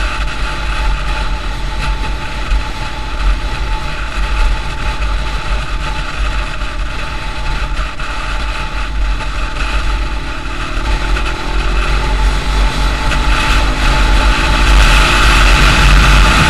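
Wind rush and the engine of a motorcycle cruising at road speed. From about eleven seconds in, the engine note climbs and the wind grows louder as it speeds up.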